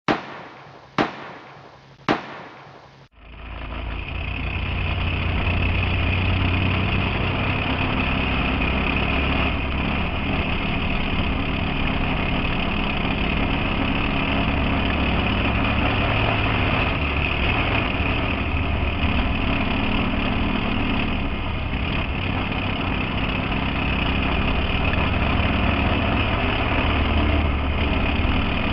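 Three sharp bangs about a second apart, then the steady drone of a mini cup stock car's engine at racing speed, heard from inside the car.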